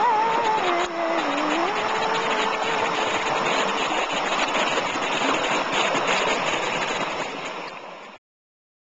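Steady rushing of river water, fading out near the end and then cutting off. A held note, the tail of the song, lingers over the first few seconds.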